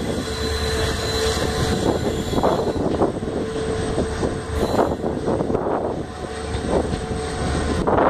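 EMD GT46PAC (WDP4) diesel-electric locomotive's 16-cylinder 710 engine running under throttle, a low steady drone with a steady whine over it, broken by scattered short knocks.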